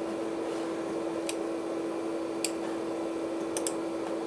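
Steady hum of the running Amiga 4000 with one held tone in it. Four light mouse-button clicks are heard, about a second apart, the last two in quick succession like a double-click.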